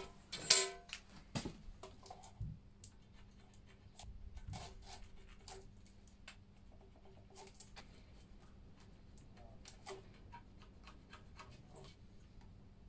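Faint scratching of a marker drawing lines on sheet steel, among small clicks and knocks as a tape measure and steel rule are handled on the plate. A louder short metallic knock comes about half a second in.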